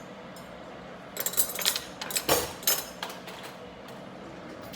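Utensils clinking and knocking against a dish as food is taken up to taste, in a quick cluster of sharp clicks between about one and three seconds in, over a steady low background hiss.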